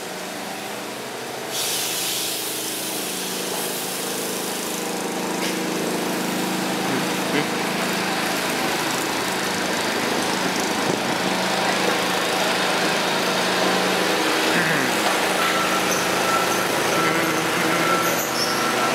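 A small engine or motor running steadily, with a stretch of hissing from about two to five seconds in.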